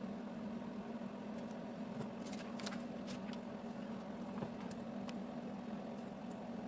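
A paper instruction booklet's page is turned, a short rustle a little over two seconds in. A few light clicks of small plastic Lego pieces being picked from a loose pile follow. A steady low hum runs underneath.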